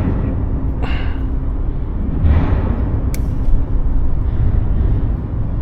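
Wind rumbling on the microphone outdoors on the water, with two brief hissing swells and one sharp click about three seconds in.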